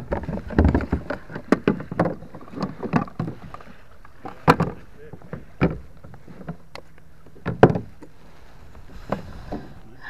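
Irregular knocks, thumps and clatter against a plastic kayak's hull and deck as a large bass is handled and laid on a measuring board. The knocks come thick in the first few seconds, then single, sharper thumps every second or two.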